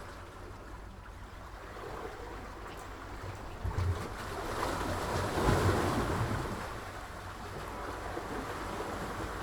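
Sea waves washing in, one wave swelling to its loudest a little past the middle and then ebbing, with a few low thumps of wind on the microphone.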